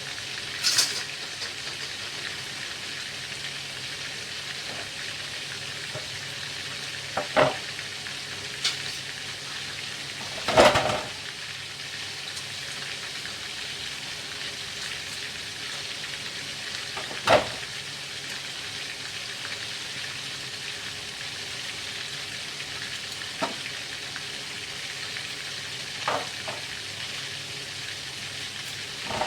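Duck pieces deep-frying in hot oil: a steady sizzle, broken now and then by a few short sharp clicks and knocks.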